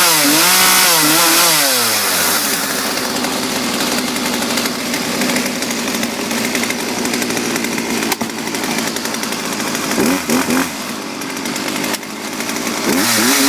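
Poulan 1950 LE 33cc two-stroke chainsaw dropping from high revs to idle in the first couple of seconds, then idling steadily. It is blipped a few times in quick succession about ten seconds in and revved up again near the end.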